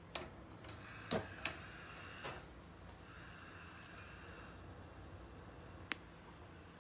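A few sharp clicks as a gas hob's control knob is turned to light the burner, the loudest about a second in, with a soft hiss for a few seconds; one more sharp click near the end.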